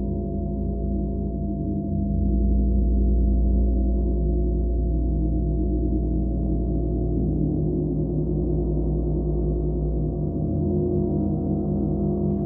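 Gong resonating in a continuous wash of many overlapping tones, deep and sustained, swelling in the low range a couple of seconds in, with no distinct single strike.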